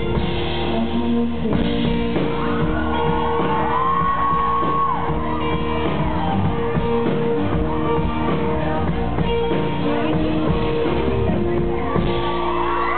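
Live band playing: strummed acoustic guitar with electric guitars, with a long held note about four seconds in. Near the end the audience starts cheering and whooping over the music.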